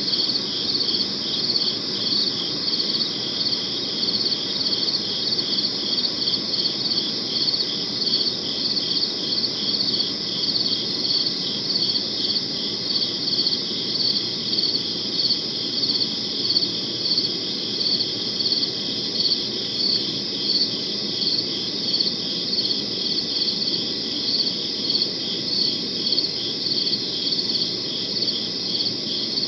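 Crickets chirping in a steady, evenly spaced rhythm, with a soft low background hiss beneath.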